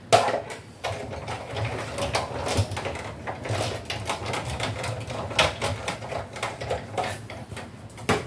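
A die-cutting machine pressing a thin metal cutting die through paper: a dense, irregular run of mechanical clicks and rattles starting sharply at the beginning.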